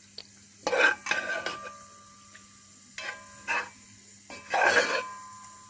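A metal spoon scraping against a cooking pot with curry in it, four separate scrapes with a faint metallic ring.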